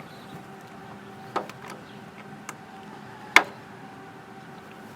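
A few sharp metallic clicks and taps from Torx bits being handled and tried against a screw head; the loudest comes about three and a half seconds in. A steady low hum runs underneath.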